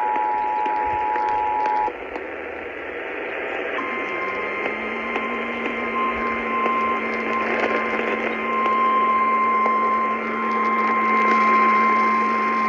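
Emergency Alert System alert tones over radio: the two-tone EAS attention signal holds steady and cuts off about two seconds in. After a short stretch of hiss, a single steady alert tone, the NOAA Weather Radio tone, comes in about four seconds in and holds. Both play over radio static with a low hum.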